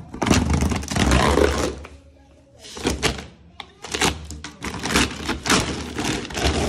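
Plastic dog food sack crinkling and rustling as its tear string is pulled and the top torn open: a long loud burst of rustling, a brief lull, then repeated crinkling bursts.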